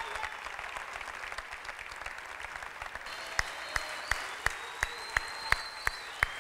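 Audience applauding. About three seconds in it turns into rhythmic clapping in unison, close to three claps a second.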